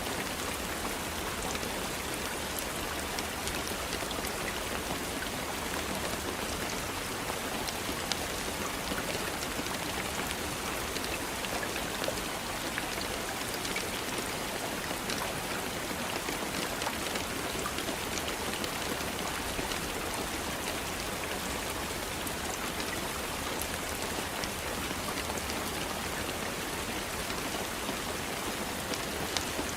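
Steady rain, with many small drop ticks scattered through an even hiss.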